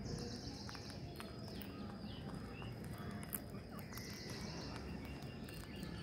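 Faint short bird chirps and scattered soft clicks of rose-ringed parakeets pecking at seed, over a steady outdoor background noise, with a high hiss for about a second at the start and again about four seconds in.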